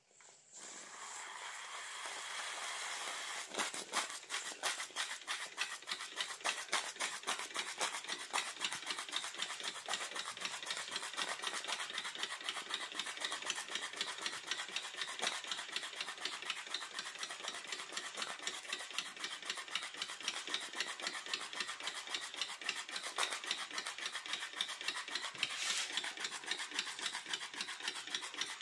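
Miniature alcohol-fired live-steam beam engine: steam hisses as the boiler valve is opened, then about three seconds in the engine starts running with a rapid, even chuffing of its exhaust that carries on steadily.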